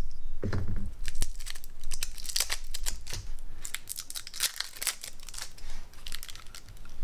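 Plastic shrink-wrap being peeled off a deck of cards and crumpled, in irregular crackles, with a dull knock about half a second in.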